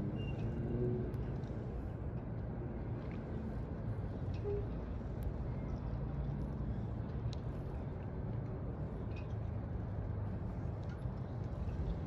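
Steady low rumble of city and harbour background noise, with a faint engine-like hum and a few small ticks.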